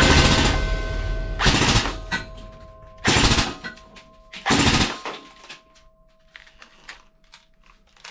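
Toy AK-47-style rifle firing three short full-auto bursts about a second and a half apart, then a few light clicks as it is handled.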